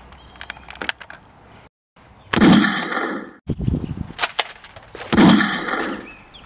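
Nerf blasters clicking as they are primed and fired, with two loud, near-identical bang-like bursts about three seconds apart.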